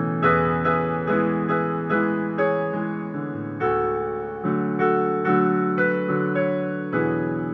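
Piano-type keyboard playing an instrumental passage with no singing. Chords are broken into evenly spaced notes, about two or three a second, each note fading after it is struck.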